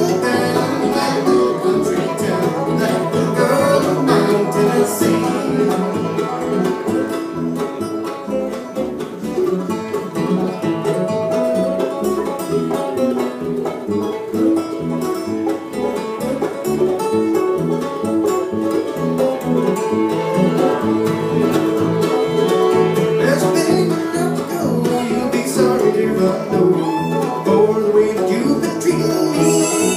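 Bluegrass band playing live: fiddle, mandolin, acoustic guitar, upright bass and banjo together in a steady, continuous instrumental stretch.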